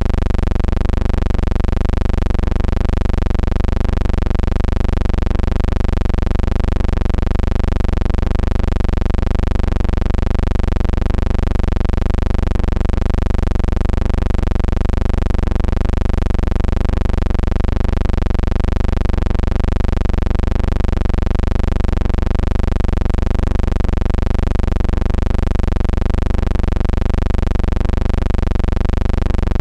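Steady, loud low hum with a slowly wavering buzzy overtone and a faint regular pulse about twice a second; no game sound comes through.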